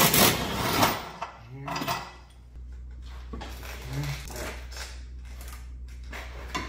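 Metal clinks and rattles of a socket and long breaker bar working a front subframe bolt, with a louder rush of noise in the first second, then a steady low hum.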